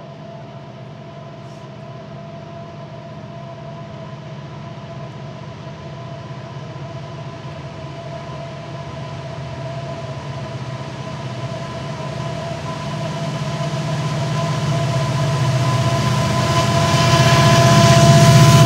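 Norfolk Southern freight train approaching: the diesel locomotives' low rumble grows steadily louder, with two steady high-pitched tones over it that dip slightly in pitch right at the end as the train draws level.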